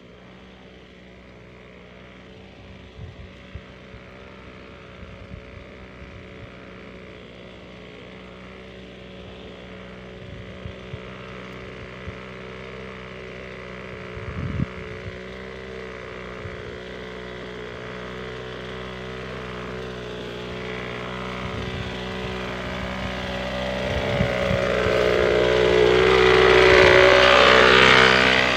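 Small engine of a motorized backpack sprayer running at a steady speed while crop spray is applied. It grows steadily louder as it approaches and is loudest near the end, with a rushing hiss from the spray.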